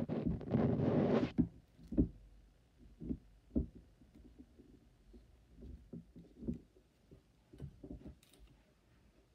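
Handling noise from gloved hands working a plastic typodont with steel hemostats: a loud rubbing rustle for about the first second, then scattered soft knocks and taps.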